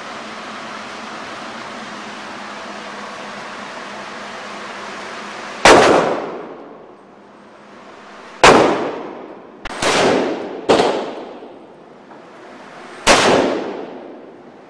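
A steady hiss, then five rifle shots from a Sig 556 in 5.56 mm, unevenly spaced over about seven seconds. Each one echoes off the walls of an indoor range.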